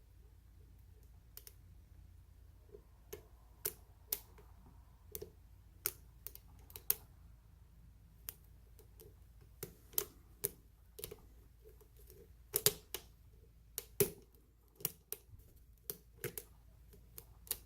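Irregular sharp clicks and light taps of a Peterson lock pick and tension wrench single-pin picking a lock's pins, with a quicker run of clicks after about twelve seconds.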